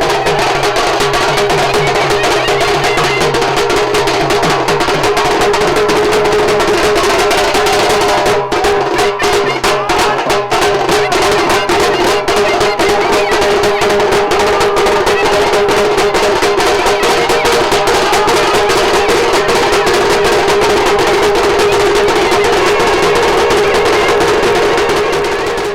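Music of fast, dense drumming under a loud, steadily held note.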